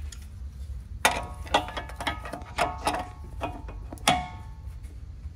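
Steel pry bar levering against a Chevy Tahoe's front suspension to check a ball joint for play: a run of about nine sharp metallic clanks and clinks, each ringing briefly, the loudest about a second in and another at about four seconds.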